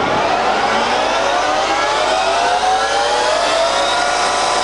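Colchester Triumph 2000 centre lathe headstock spinning up to its top speed of 2000 rpm: a gear whine of several tones that rises steadily and levels off about four seconds in.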